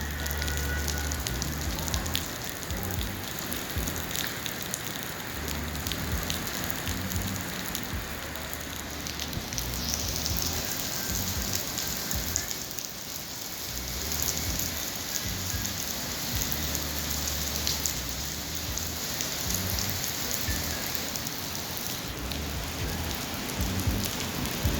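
Heavy rain falling on a city street: a steady hiss with many small drop hits, over a low rumble.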